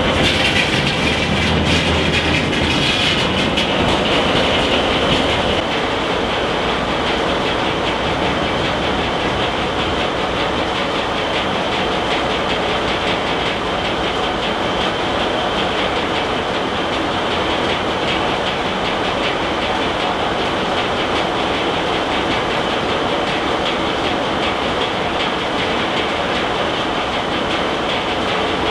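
Belt-driven circular saw mill powered by steam, running steadily: a continuous mechanical din from the spinning blade, belts and log carriage, a little louder and brighter for the first five seconds or so.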